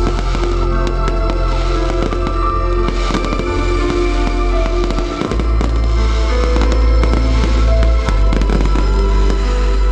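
Aerial fireworks bursting and crackling in quick succession over loud music with a heavy bass.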